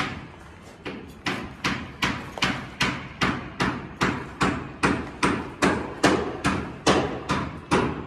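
Footsteps on a bare concrete floor, a steady walking pace of about two and a half steps a second after a short pause in the first second.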